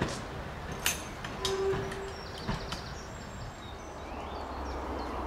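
A British Rail Class 108 diesel multiple unit running over the track, its wheels clicking sharply over rail joints several times in the first three seconds above a low rumble, with a brief steady tone about one and a half seconds in. Birds chirp faintly near the end.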